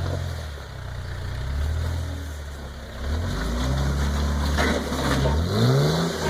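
A lifted Jeep's engine working through a rock-crawling obstacle, rising and falling with the throttle and revving up in pitch near the end.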